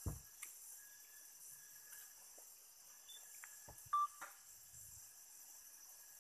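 Faint, steady drone of forest insects, with a low thump just after the start and a brief high beep-like chirp about four seconds in, the loudest moment.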